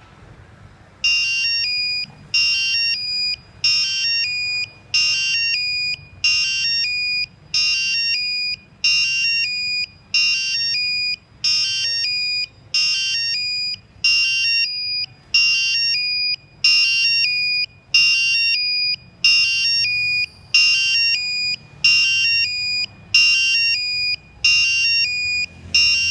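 Electronic buzzer driven by an ATmega328P microcontroller sounding a high, shrill electronic tone. The tone repeats in the same short pattern about once a second, starting about a second in.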